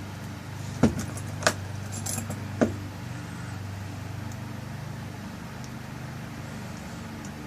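Small metal clicks and clinks from a lock cylinder and its tail piece being handled and screwed together, four sharp clicks in the first three seconds, over a steady low hum.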